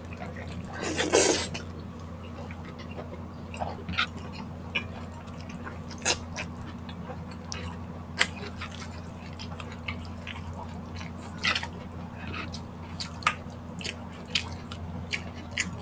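Close-miked mukbang eating sounds: chewing and wet mouth noises from people eating rice and vegetables by hand, with scattered short smacks and clicks. A louder noisy burst comes about a second in, over a steady low hum.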